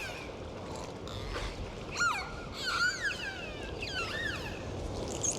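Dolphins whistling: several short rising-and-falling whistles, about two, three and four seconds in, with a brief high squeak near the end, over a steady hiss of sea noise.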